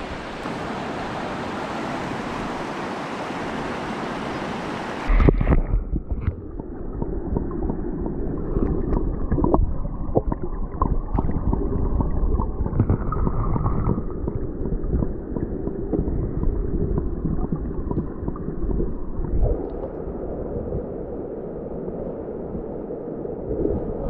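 Chandra river's rushing water, a dense steady hiss. About five seconds in the sound cuts abruptly to a duller low rumble with scattered knocks.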